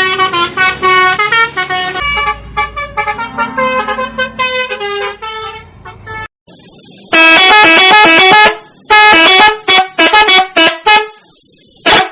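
Telolet musical horns on STJ Draka buses, Basuri-type multi-trumpet air horns, playing fast runs of changing notes. After a short break, from about seven seconds in, come several loud, longer multi-tone blasts.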